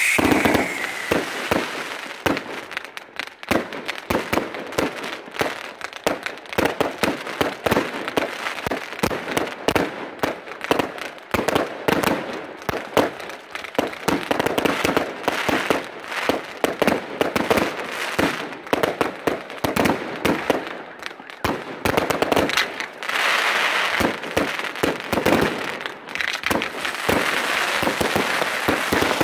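Aerial fireworks going off in quick, irregular succession: launch thuds and bursting bangs with crackle, one after another with no break. A high whistle fades out about a second in.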